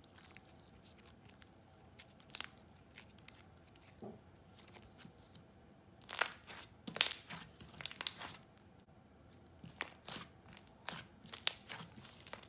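Slime being pressed and stretched by hand, giving irregular sticky clicks and crackles, busiest past the middle.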